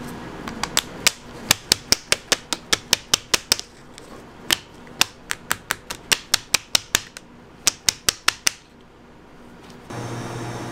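Clear plastic chocolate mold, freshly filled with liquid white chocolate, rapped again and again on a hard countertop: sharp knocks about four or five a second, in three runs with short pauses. This tapping levels the chocolate and knocks out air bubbles.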